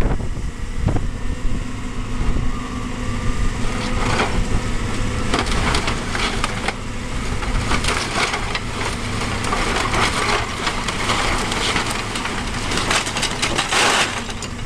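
Caterpillar 325B excavator's diesel engine running steadily while its demolition grab crunches and splinters roof timbers and tiles. The cracking grows busier from about eight seconds in, and there is a loud crash of falling debris near the end.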